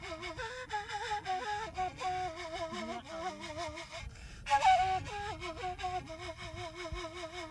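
Solo flute playing a melody decorated with quick trills. The line breaks off briefly about four seconds in, then comes back with a breathy, louder note.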